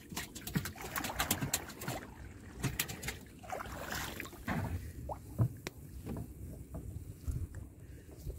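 Paddle strokes in the water beside a wooden canoe, with a run of knocks and clicks in the first few seconds and a splash about four seconds in.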